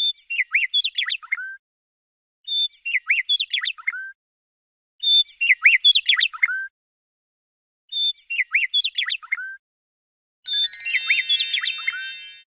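Bird song: the same short phrase of quick chirps and whistles repeated five times, about every two and a half seconds. A bright chime rings out over the fifth phrase, about ten and a half seconds in.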